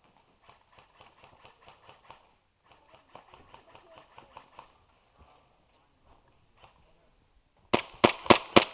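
Airsoft gun firing a rapid string of sharp shots, about six or seven a second, starting about a second before the end. Before that, faint quick clicking comes in two stretches, then it goes quiet.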